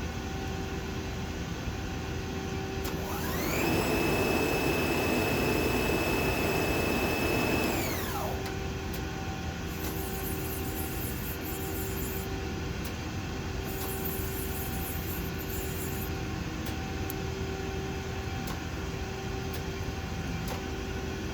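Muratec MW120II twin-spindle CNC lathe running over a steady machine hum. A spindle whine rises quickly, holds steady for about four seconds, then winds back down. Later come two short spells of hiss.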